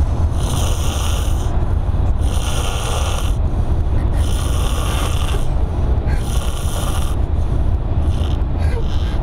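A man snoring heavily: four rasping, hissing breaths about two seconds apart, over a steady low rumble.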